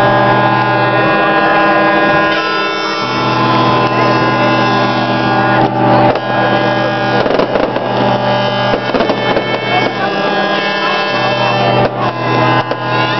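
Music of long, droning held chords that shift every few seconds, with a few short cracks about six to nine seconds in.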